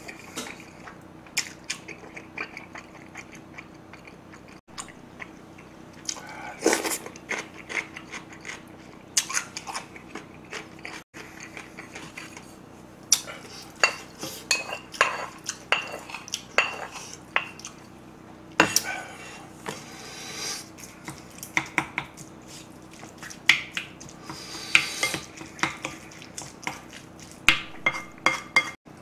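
Close-up eating sounds: chewing and smacking of mouthfuls of rice, with a wooden spoon scraping and tapping against bowls and a plate as fried egg is scraped onto the rice and mixed in. Many short clicks and scrapes come at irregular moments over a faint steady hum.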